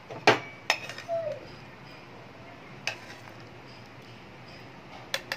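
Metal ladle clinking against the metal pressure cooker pot while stirring boiled chickpeas: two sharp clinks near the start, one about three seconds in, and two in quick succession near the end.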